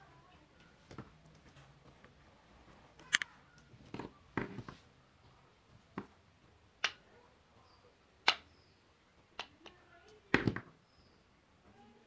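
Handling noise: a string of sharp, irregularly spaced clicks and knocks as an LED bulb and its test wiring are handled, with a double knock near the end the loudest.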